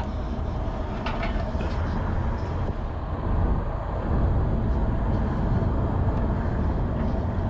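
Steady rushing noise of a waterfall pouring into a pool.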